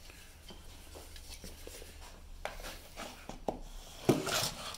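Handling noise: scattered light clicks and knocks, with a louder clatter about four seconds in.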